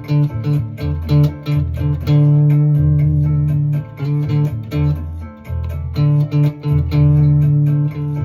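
Guitar improvising a single-note melody in A harmonic minor, landing on the fourth, D, over a backing of an A minor chord with a bass line underneath.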